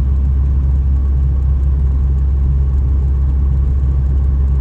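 Car driving, with a steady low rumble of engine and road noise.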